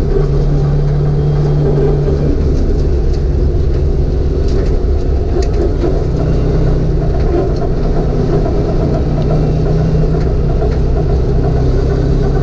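1988 Ford Mustang's engine running at steady part throttle, heard from inside the cabin over road and wind noise. It eases off for a few seconds about two seconds in, then pulls again.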